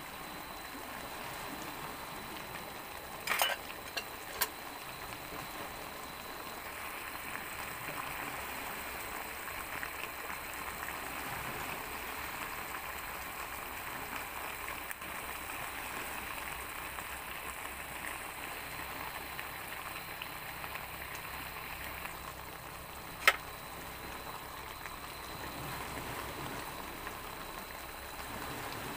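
A pot of moonfish and okra in vinegar broth simmering, with a steady bubbling hiss. A few sharp clicks break in about three and four seconds in, and a single louder click comes a little before the end.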